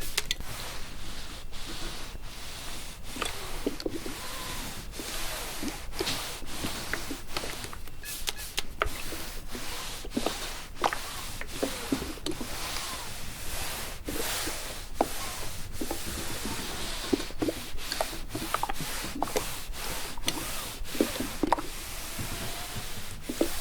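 A clothes iron being pushed back and forth over fabric, a steady rubbing swish with many light knocks and short squeaks mixed in.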